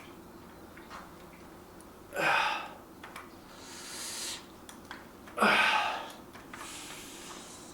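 A man breathing hard while lifting: two forceful exhalations about three seconds apart, each followed by a softer inhale.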